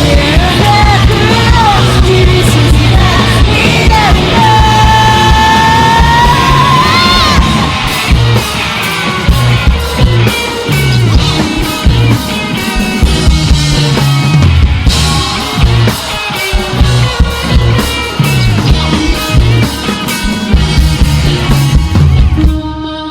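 Live rock band playing loud, with drums and bass under a wavering lead line in the first several seconds. Near the end the song stops, and a held chord rings on and fades.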